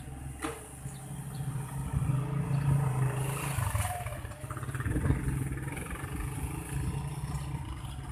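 Excavator engine running with a steady low drone, rising in load about two seconds in and again around five seconds.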